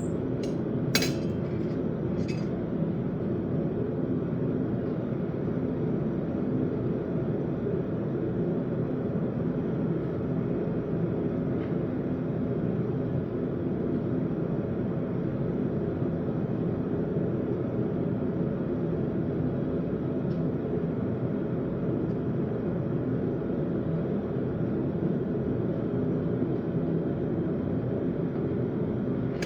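Blacksmith's forge running with a steady, low rushing noise, with a few sharp metallic clinks in the first couple of seconds.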